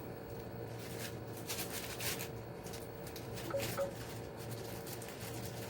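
Soft, irregular rustling and light clicking as foam beads are shaken out of their small plastic packet into a container of slime.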